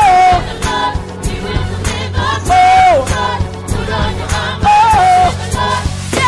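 Christian worship song with a group of voices singing over a steady drum beat.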